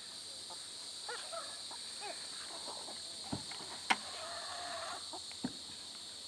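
Chickens clucking and calling around scattered feed, with short arched calls and one longer drawn-out call about two-thirds of the way through. A few sharp knocks cut in, the loudest a little before the four-second mark.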